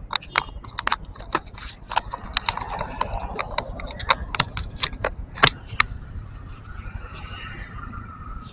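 Handling noise on the camera: irregular taps, clicks and knocks against its housing, a few a second and some sharp, over a steady low rumble.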